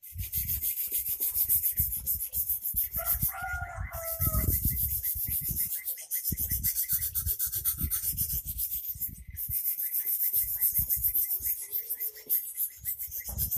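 Steel kerambit blade stroked quickly back and forth on a whetstone, a steady run of rasping scrapes of metal on stone as the edge is honed sharp.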